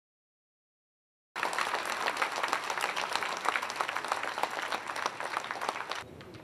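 An auditorium audience applauding after a second of silence, a dense patter of many hands clapping; it cuts off suddenly near the end, leaving faint room sound.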